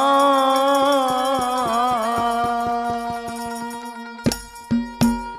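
Devotional folk bhajan music: a male voice holds and bends the last note of a sung line over a steady drone, with quick, even percussion strokes running underneath. Near the end the music thins out to two loud drum beats.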